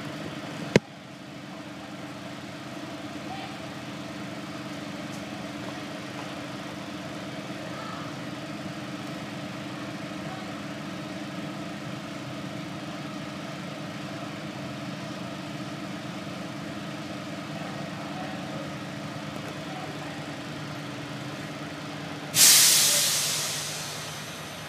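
A bus's diesel engine idling steadily, heard from inside the bus, with a sharp click about a second in. Near the end a loud burst of compressed air hisses from the bus's pneumatic system and fades over about two seconds.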